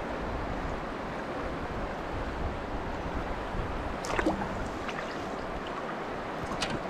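Steady rush of river water flowing over rocks, heard close to the microphone, with a couple of small splashes about four seconds in and near the end.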